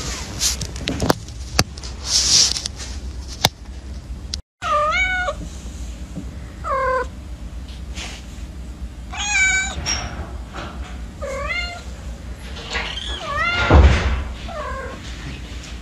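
Kitten mewing, a string of about seven short, high, wavering mews that come closer together near the end. Before the mews there are a few sharp taps and rustles, and a low thump near the end.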